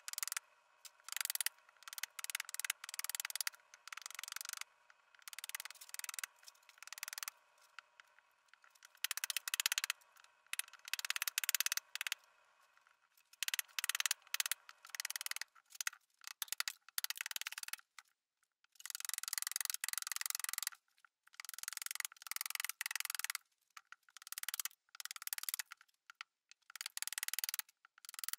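Hand axe chopping into a green birch cup blank: irregular runs of sharp, short chopping strikes with brief pauses between runs.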